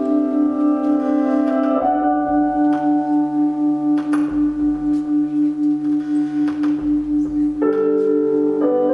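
Ambient instrumental music: held chords over a steady drone that pulses a few times a second, with a few struck, ringing notes. The chord changes about two seconds in and again near the end.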